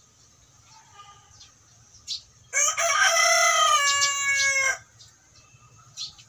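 Rooster crowing once, a single loud crow lasting about two seconds that starts about two and a half seconds in.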